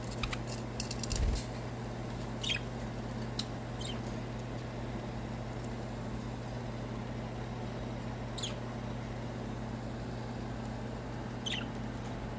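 Budgerigars giving a few short, high chirps that sweep downward, spaced several seconds apart, over a steady low hum. A few clicks and a low bump in the first second or so.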